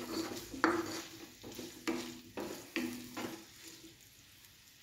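Sliced onions sizzling in hot coconut oil in a nonstick frying pan while a wooden spatula stirs and scrapes them, about two strokes a second. The stirring stops about three and a half seconds in, leaving the sizzle alone.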